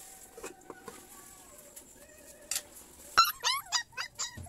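A dog giving a quick run of short, high yelps and whines, starting about three seconds in, after a few faint clicks.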